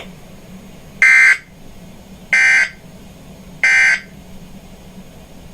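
Three short, identical bursts of weather-radio SAME digital alert code, each about a third of a second long and spaced about 1.3 seconds apart, over a faint low hum.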